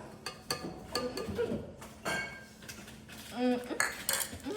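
Short knocks and clinks of kitchen utensils and containers being handled, with a brief voice and music playing in the background.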